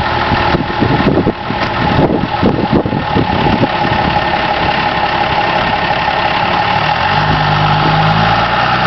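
Pickup truck engines running steadily with the trucks stuck in mud. About seven seconds in, a deeper steady engine note joins.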